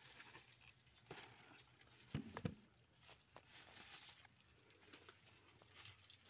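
Faint rustling with a few scattered soft knocks, loudest about two seconds in, as someone moves through leafy chayote vines.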